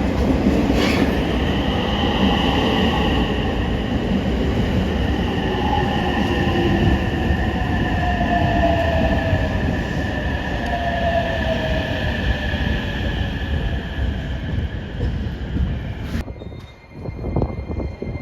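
Electric express train running at a station: rumble of wheels on rail, with a motor whine that slowly falls in pitch as the train slows. The sound breaks off abruptly near the end and is followed by a quieter, faintly rising whine.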